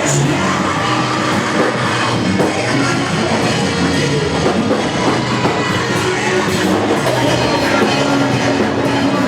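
Live worship band playing loud, steady music with drum kit and guitar.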